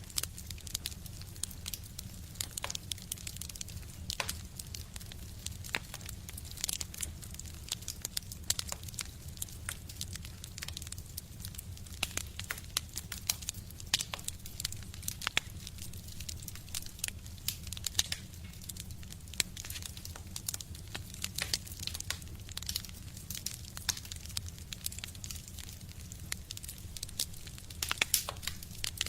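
Fire burning in a stove, crackling with many irregular sharp pops, a few louder than the rest, over a steady low rumble.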